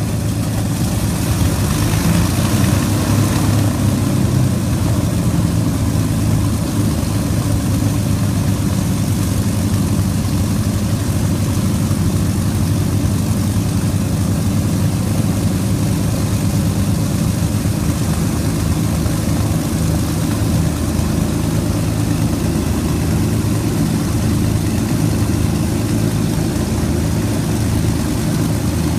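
Avro Lancaster's Packard Merlin V12 engines running steadily on the ground during an engine run-up, a deep, even rumble with propeller wash, swelling slightly in hiss about two seconds in.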